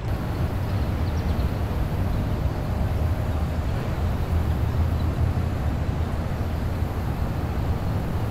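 A steady low rumble with a faint hiss over it, with no distinct events.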